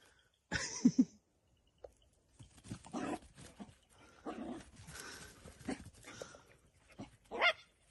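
A dog barking in play: a series of short barks, with a louder one about a second in and another near the end.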